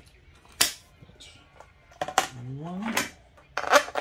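A few sharp, separate clicks of steel bolts and washers being handled and set against a clear plastic plate and tabletop.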